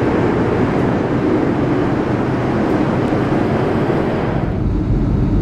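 Steady cabin noise inside a Boeing 737-500 in flight, from its CFM56-3 jet engines and the rush of air. About four seconds in, the sound turns duller, with a stronger low rumble.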